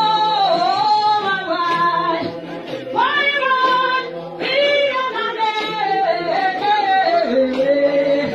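A high voice singing long, sliding held notes, with two short breaks for breath and a drop to a lower note near the end.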